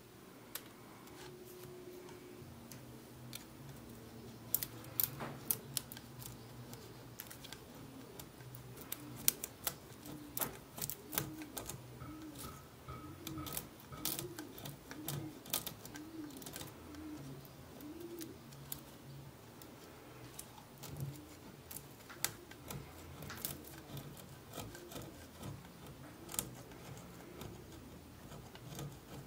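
A snap-off utility knife blade scraping and picking at crusted grime on the wooden body of an old hand plane, in irregular scratchy clicks and scrapes.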